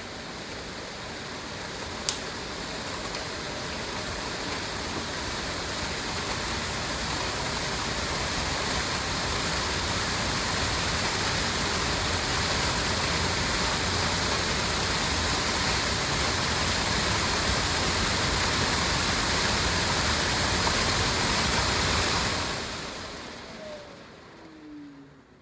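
A 3/4 hp variable-speed ECM blower motor spinning a squirrel-cage blower wheel on the bench, with a steady rush of air. It ramps up gradually over the first several seconds, holds at speed, then is switched off near the end and coasts down with a falling whine. A single sharp click comes about two seconds in.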